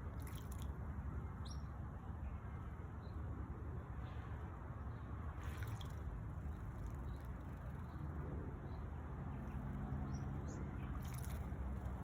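Small birds bathing in a bird bath: three brief splashes of water and a few short high chirps, over a steady low background rumble.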